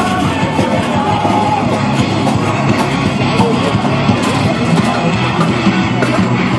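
Loud rock music with guitars and a steady drum beat playing over loudspeakers.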